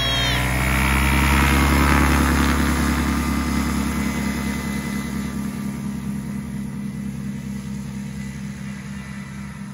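Excalibur light aircraft's engine and propeller running under power as the plane rolls away down the airstrip, its sound fading steadily with distance.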